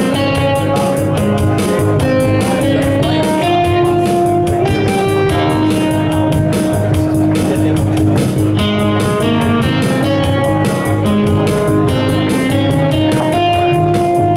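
Instrumental intro of a song: guitar playing over a steady drum-machine beat, with no singing.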